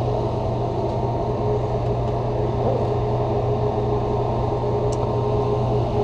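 Steady low mechanical hum with a faint constant tone above it, typical of building ventilation running; a few faint ticks sound near the end.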